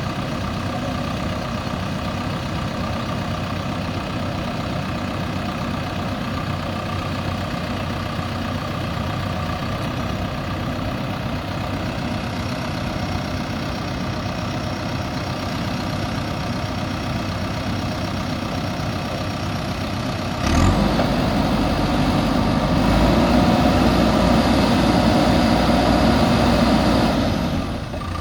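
Diesel engine of a JCB backhoe loader running steadily, then stepping up sharply to a louder, heavier run about two-thirds of the way in, easing off briefly near the end.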